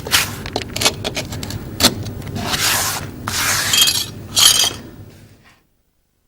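A quick run of sharp clicks and knocks, then three short scraping hisses, fading out about five and a half seconds in.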